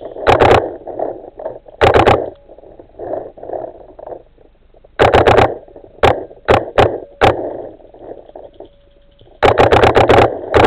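Paintball markers firing: quick strings of sharp pops in several bursts, with a few single shots in between.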